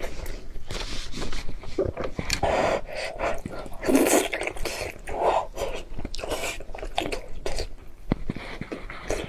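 A person eating: chewing and other mouth sounds, broken by short sharp breaths.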